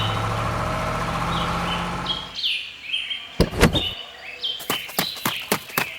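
A vehicle engine running steadily under chirping birds, cutting off about two seconds in. Then a single knock, and near the end a quick run of sharp clicks, several a second.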